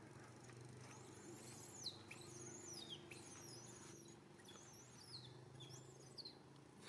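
Faint, high-pitched animal calls: a series of short chirps, each falling in pitch, about one a second.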